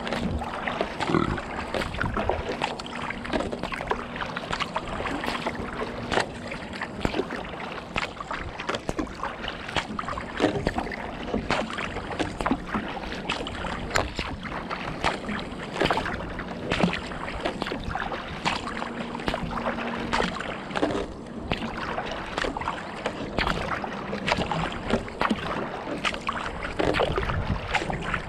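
Kayak paddling on calm water: irregular splashes and drips from the paddle blades, over the steady wash of the bow wave along the hull.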